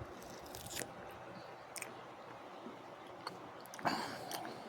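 Someone chewing a soft piece of beef jerky close to the microphone: faint, scattered wet mouth clicks and smacks, a little louder about four seconds in.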